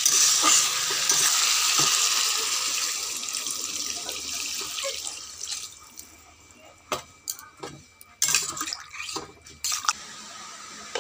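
Water poured into a hot wok of fried potatoes and ridge gourd, hissing and bubbling loudly at first and dying down over about five seconds. Then a few short knocks and scrapes of a metal ladle stirring against the wok.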